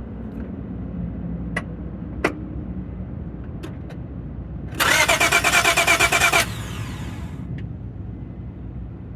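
A 2002 Acura TL's starter motor cranks its V6 engine for a little under two seconds with a fast, even pulsing rhythm, then stops without the engine catching: a crank-no-start with a fully charged battery. A few light clicks come before it.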